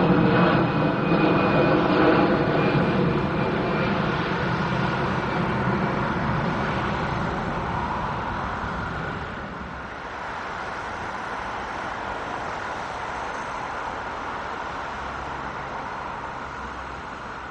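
Airbus A380 jet engines running as the airliner moves past: a dense engine noise with a high whine, fading over the first ten seconds. After that comes a quieter steady jet rumble.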